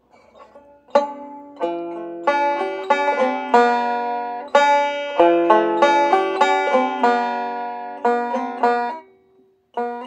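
Five-string banjo being finger-picked: a phrase of plucked, ringing notes over held chords, starting about a second in, with a brief break near the end before the picking starts again.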